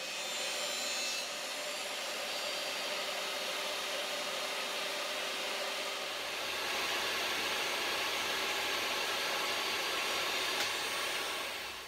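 Table saw running steadily as a thin moulded timber strip is fed through the blade for a 45-degree miter cut, a little louder in the second half.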